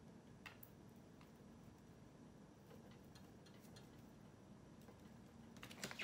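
Near silence: room tone with a few faint, light clicks, the clearest about half a second in.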